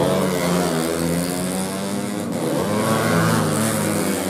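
Four-stroke 130cc underbone race motorcycles running at high revs past the track. Their engine pitch slides down early on and climbs again about three seconds in as the bikes accelerate.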